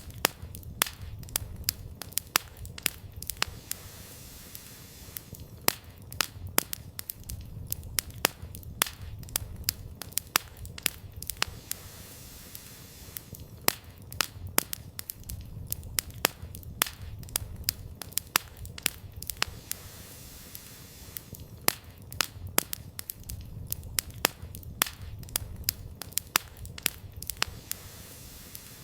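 Campfire burning: the firewood crackles and pops in sharp, irregular snaps, several a second at times, over a low rumble that swells and fades every few seconds.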